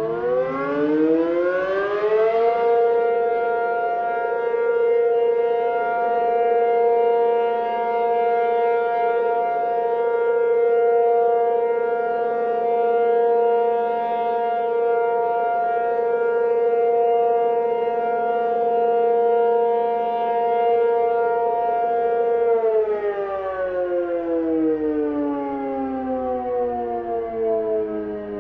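Tornado warning siren winding up in pitch over the first couple of seconds, holding one loud, steady wail for about twenty seconds, then winding down with a falling pitch near the end.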